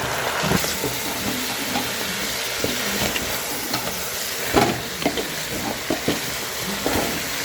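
Food frying in hot mustard oil in a pan: a steady sizzle, with a few knocks of a utensil stirring about halfway through and near the end.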